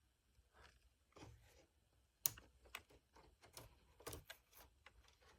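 Faint, irregular clicks and taps from hands working a Snap Circuits fire alarm panel's plastic parts and buttons.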